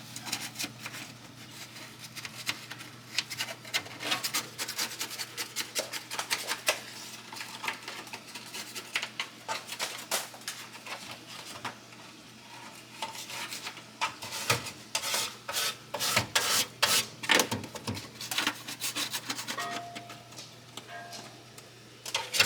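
A rag with baking soda paste scrubbing grease off the inside of a kitchen range hood: quick, repeated rubbing strokes that ease off for a moment around the middle, then pick up again.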